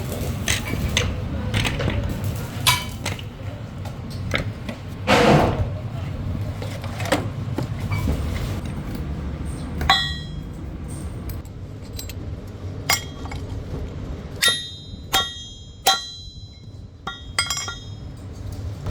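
Steel parts clinking and knocking against each other and against metal, several strikes ringing briefly, over a low steady machinery rumble.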